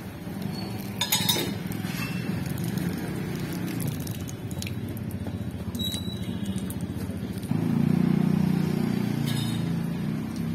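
A few sharp clinks over a steady low background rumble, which gets louder about three-quarters of the way through.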